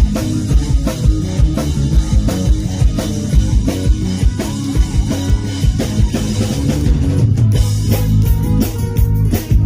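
Live rock band playing an instrumental passage in an acoustic arrangement: guitars over a steady drum-kit beat.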